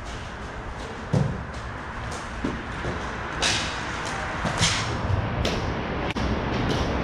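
Ball hockey play: scattered sharp clacks and knocks of sticks and ball on the court and boards over a steady rink hum, the loudest about a second in.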